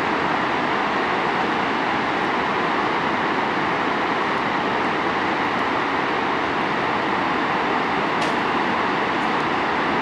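Waterfall and the rushing river below it: a loud, steady, unbroken rush of falling water.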